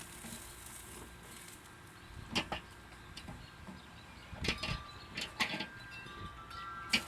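Faint light metallic clinks, a few at a time, followed from about two-thirds of the way in by clear ringing notes at several pitches that hang on, like a chime.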